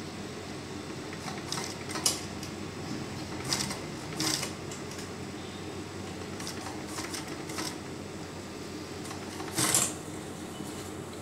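Industrial flat-bed single-needle sewing machine running as it stitches cloth: a steady hum, with a few sharp clicks now and then, the loudest near the end.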